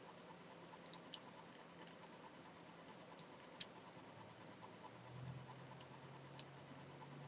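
Knitting needles clicking now and then: a few sharp, separate ticks over a near-quiet room, with a faint low hum coming in about five seconds in.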